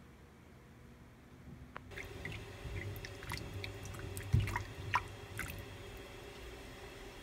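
Cherry tomatoes being washed by hand in a stainless steel bowl of water: splashing, dripping and the tomatoes knocking together, with one louder bump about four seconds in. The first two seconds hold only faint room tone.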